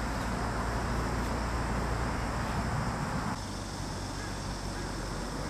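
Steady outdoor background noise: a low rumble and hiss with a few constant high, thin tones over it. The background shifts abruptly about three and a half seconds in, getting a little quieter and thinner.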